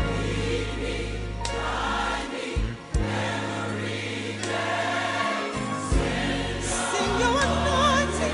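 Gospel choir music with held bass notes that change every couple of seconds; a voice with wide vibrato comes in near the end.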